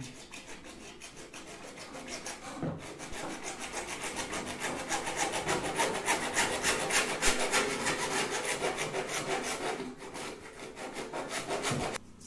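Hacksaw blade sawing through PVC pipe by hand, in quick, even back-and-forth strokes. The strokes are light at first, grow louder a few seconds in, then ease off and stop near the end.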